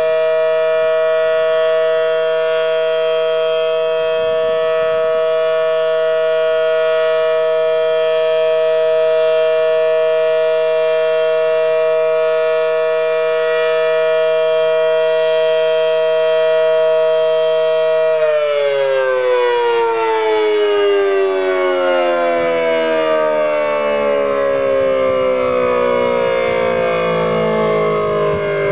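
Federal Signal Model 7T outdoor warning siren sounding the alert signal, a steady unwavering tone. About two-thirds of the way through it shuts off and winds down, its pitch falling steadily.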